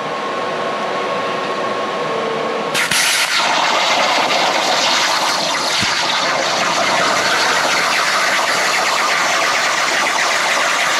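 CNC plasma cutting table: about three seconds in, the plasma torch arc strikes with a sudden loud hiss, then keeps hissing steadily as it cuts 3/8-inch steel plate.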